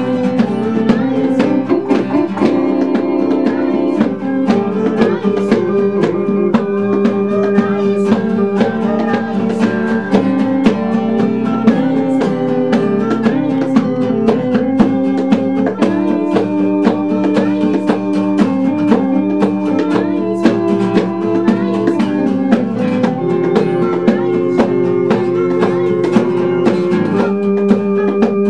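A small band plays a catchy pop song: acoustic guitar strumming over held keyboard notes, with a steady beat.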